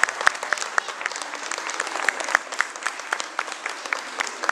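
Audience applauding: many hands clapping at the end of a dance performance.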